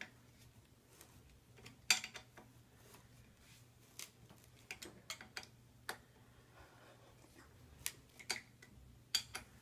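Irregular sharp metal clicks and ticks, about ten over several seconds, from a wrench working the bolts of a scooter's SCS clamp as they are tightened as far as they will go.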